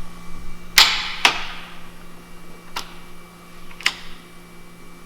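Truck cap rear-door latches clicking as the release is tested. Two sharp clicks come about half a second apart about a second in, and two fainter clicks follow later. The test checks that the cable release opens the latches on both sides evenly.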